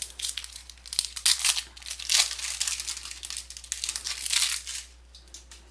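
Trading card pack wrapper being torn open and crinkled by hand, a dense crackling that stops about five seconds in.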